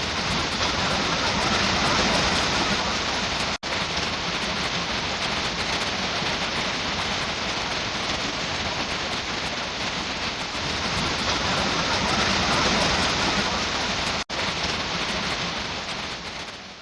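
Heavy rain falling steadily, a dense even hiss of rain on the ground and surfaces. The sound drops out sharply for an instant twice.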